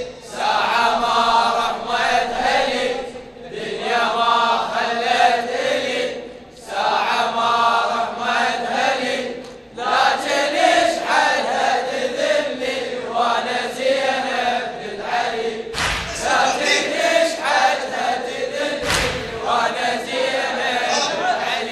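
Voices chanting a Shia latmiyya lament in drawn-out phrases about three seconds long, each separated by a short breath-like dip. Two deep thumps fall in the last third.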